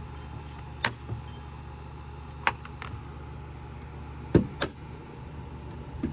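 A chainsaw being handled: several short, sharp clicks and knocks, the loudest a pair about four and a half seconds in. A steady low hum runs underneath.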